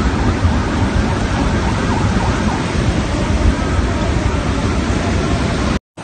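Flash-flood water rushing through a channel, a loud, steady rush with a deep rumble underneath. It cuts off suddenly just before the end.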